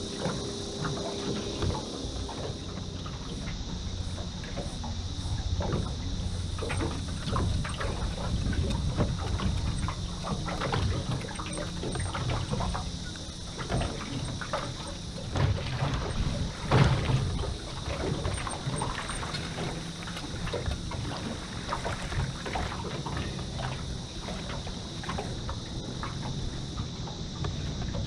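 Wind buffeting the microphone and small waves slapping and lapping against the hull of an aluminium boat, with a faint steady high whine throughout and a busier spell of splashing about two-thirds of the way in.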